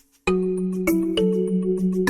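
Background music: after a brief near silence, it starts abruptly about a quarter second in, with struck notes changing every few tenths of a second over a held low note.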